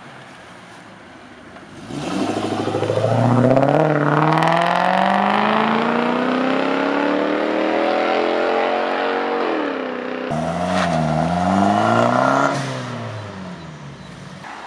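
Modified car accelerating hard away, its engine note climbing steadily for several seconds. The note falls about ten seconds in, climbs again briefly, then fades out.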